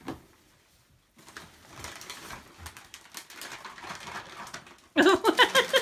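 Shiny foil wrapping paper rustling and crinkling as a present is handled and unwrapped. Near the end a much louder, short, wavering pitched voice-like sound cuts in over it.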